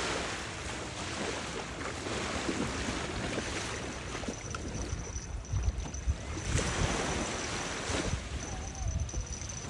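Small waves washing onto a sandy beach, with wind buffeting the microphone in low gusts that are strongest in the middle. A person splashes through the shallow water.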